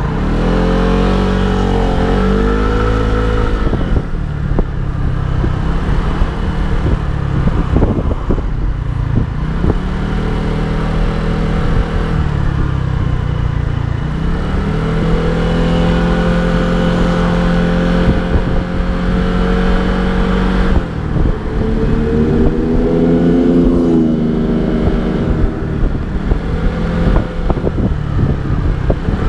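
Lambretta V125 Special scooter's 125 cc engine running on the move. Its note climbs as it accelerates in the first few seconds, holds steady while cruising, then dips and rises again with the throttle, over a constant rush of wind and road noise.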